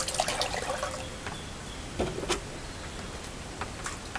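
Water pouring from a plastic jug through a wire mesh strainer into a tub of thick gel, trailing off about a second in. A single knock comes about two seconds in, followed by faint handling clicks as the gel is stirred.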